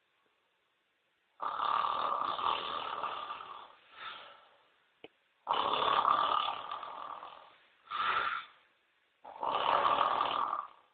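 A man snoring in his sleep: three long snores of about two seconds each, each followed by a short snort-like breath, with near silence between. There is a single faint click about five seconds in.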